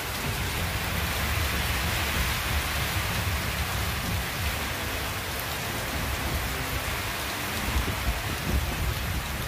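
Heavy rain pouring steadily, an even dense hiss.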